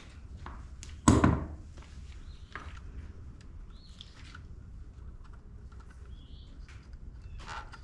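Handling noises from hands-on work: one sharp knock about a second in that rings briefly, then light clicks and rustles, with a few faint high chirps.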